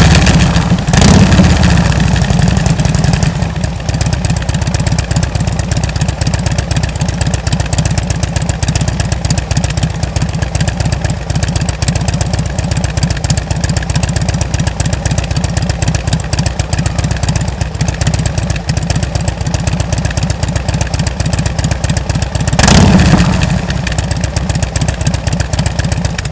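Harley-Davidson V-twin running through Rush slip-on mufflers: a steady idle, blipped briefly about a second in and revved again near the end.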